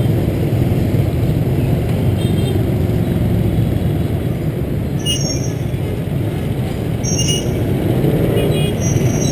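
Motor scooter riding through dense city motorbike traffic: a steady low rumble of engines and road noise, with brief high tones about five and seven seconds in.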